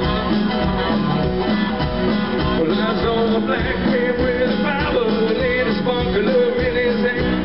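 Live country band playing the up-tempo opening of a song, guitars over a steady drum beat, heard through the stage sound system.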